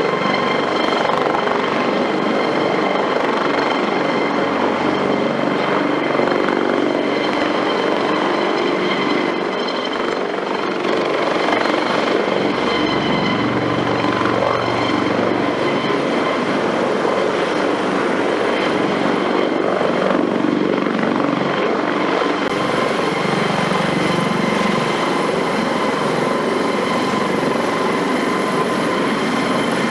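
Twin-engine Eurocopter AS365 Dauphin helicopter running steadily: rotor noise with a high, steady turbine whine over it.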